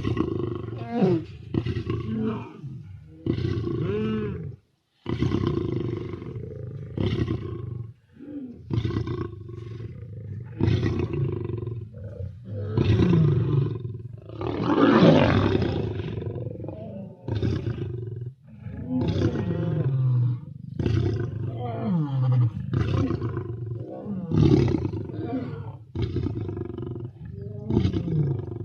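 A sleeping lion breathing and grunting: a steady series of rough, rumbling breaths and grunts, one after another, some falling in pitch, with the longest and loudest about halfway through.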